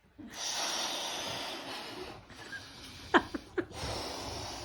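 People breathing out hard and long through the mouth, two long rushing breaths of about two seconds each, as in a 'blow the balloon' breathing exercise.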